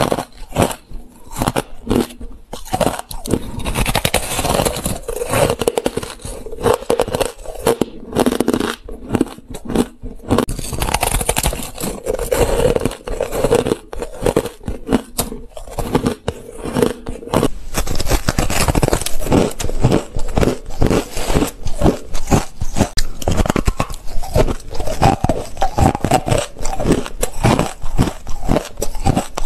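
Close-miked crunching of hard, frost-covered ice chunks being bitten and chewed: many sharp crunches in quick, uneven succession. From a little over halfway through the crunches come denser and more evenly.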